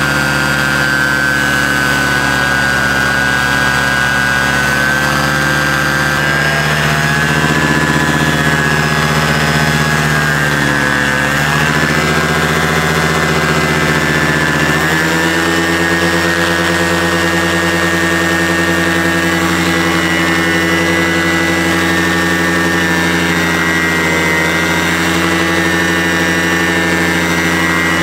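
Paramotor engine and propeller running steadily on the ground. The engine speed wavers and dips about ten to twelve seconds in, then settles a little higher from about fifteen seconds on.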